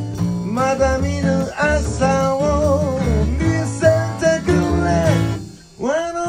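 A small blues band plays: a cutaway acoustic guitar, an upright double bass and a drum kit. The music stops briefly about five and a half seconds in, then comes back in on a rising, sliding note.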